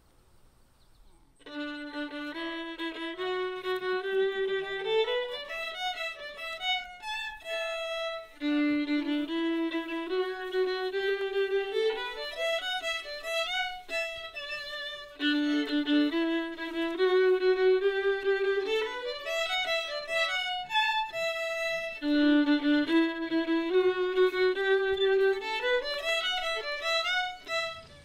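Two violins playing a simple tune together: a short phrase, played four times, that starts on a low held note and climbs in steps to a higher one. The playing begins after about a second and a half of quiet.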